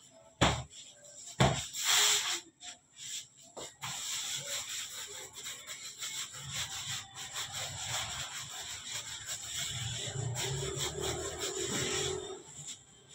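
Hands rolling long logs of bread dough on a floured work table: a steady dry rubbing that starts about four seconds in, after a couple of sharp knocks in the first two seconds.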